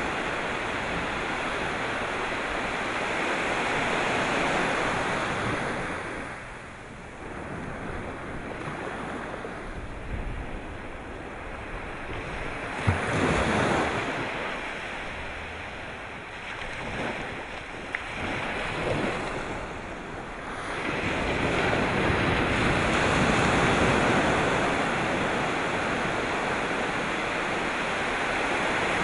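Sea waves breaking and washing on the shore, swelling and receding, with a quieter lull in the middle and a couple of brief knocks. Some wind buffeting on the microphone.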